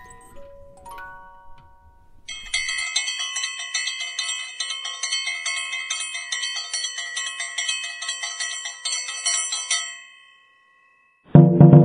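Background music: a fast, high-pitched tinkling melody of rapid repeated notes, which stops about ten seconds in. After a second of silence, louder keyboard music with a heavy low end starts near the end.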